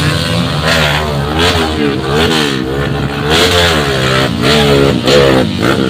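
Off-road dirt bike engine revved hard in repeated rising-and-falling surges, about once a second, as the throttle is worked on and off.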